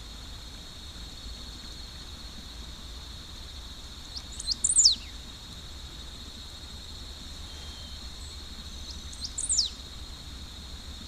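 Great pampa-finch (sabiá-do-banhado) singing: twice, about five seconds apart, a short phrase of a few brief high notes ending in a loud note sweeping down in pitch. A steady high insect drone runs underneath.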